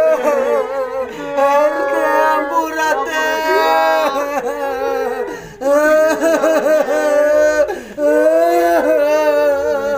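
Several people wailing and sobbing loudly in grief, crying out words between long, drawn-out wails.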